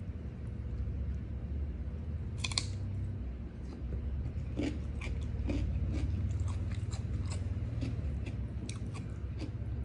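Close-up crunchy chewing and biting of a mouthful of rice with raw ulam vegetables such as cucumber: scattered wet crunches, one louder about two and a half seconds in and a run of them in the second half. A steady low hum lies beneath.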